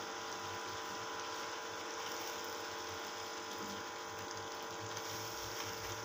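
Steady hum with a faint even hiss in a kitchen, while chicken tikka cooks in a wok on high flame.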